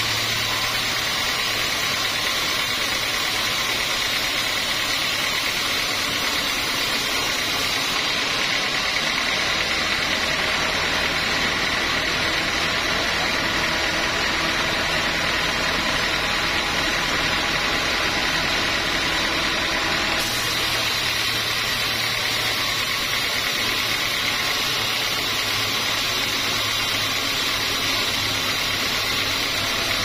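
Band sawmill running steadily, its blade and drive whirring as a teak log is sawn. The low hum shifts about a quarter of the way in and again about two-thirds of the way in.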